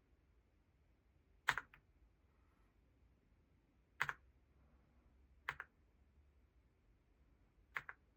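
Single keys pressed one at a time on an EPOMAKER x Aula F99 mechanical keyboard with Graywood V3 switches: four separate keystrokes a second or two apart, each a sharp clack of press and release.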